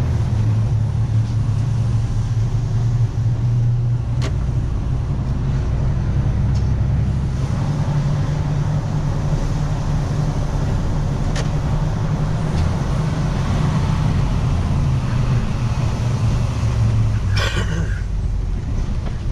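Engine and road noise of a moving vehicle heard from on board: a steady low engine hum that rises a little in pitch about eight seconds in and drops back near the end.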